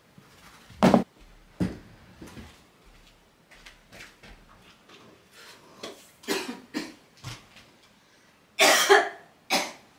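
A woman coughing repeatedly, set off by the dust she has stirred up clearing out from under a bed; the loudest coughs come close together near the end.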